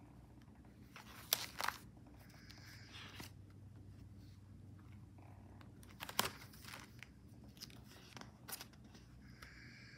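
Thick glued collage pages of a coil-bound book being turned: papery crackling and rustling, with sharp snaps as a page flips over about a second in and again around six seconds in, over a low steady hum.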